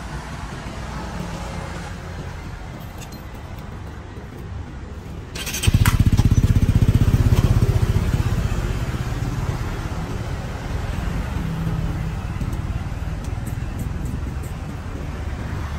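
A motorcycle engine running close by comes in loud about six seconds in, just after a short hiss, and then fades slowly over a steady background of street traffic.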